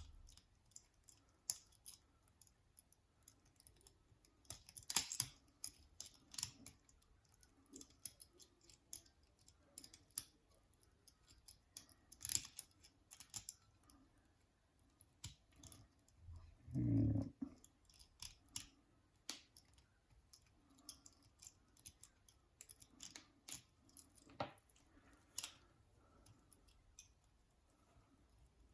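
Faint, irregular metallic clicks and scrapes of lever-lock picking tools working the levers inside a six-lever padlock. There is a duller low thump about seventeen seconds in.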